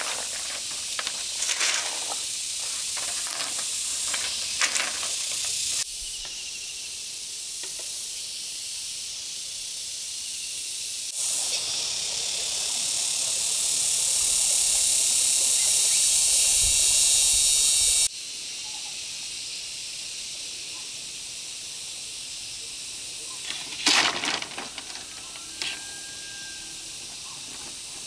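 A steady high-pitched hiss that changes abruptly in level three times, with scattered short knocks and rustles in the first few seconds and again about 24 seconds in.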